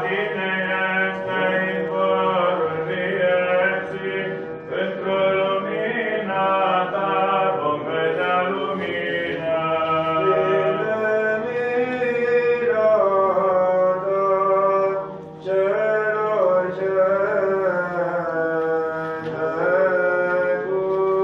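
Church chant: a sung melody over a steady, held low drone, with a brief pause about 15 seconds in.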